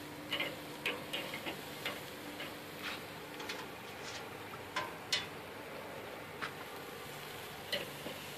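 Metal tongs clicking and tapping against a Weber kettle grill's grate and crab shells as blue crabs are arranged on it: scattered light clicks, about one a second.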